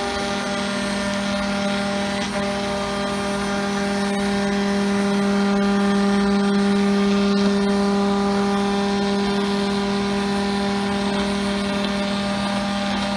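Multicam 5000 Series CNC router running, a steady machine hum with overtones that grows slightly louder about halfway through.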